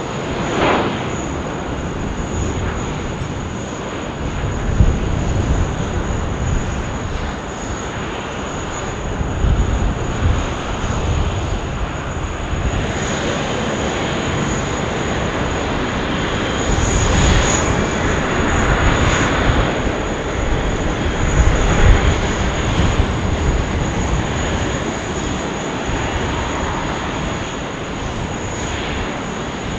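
Jet engine noise of a Qantas Boeing 747 coming in to land, a broad continuous rush that swells through the middle and eases off towards the end, with uneven low rumbles underneath.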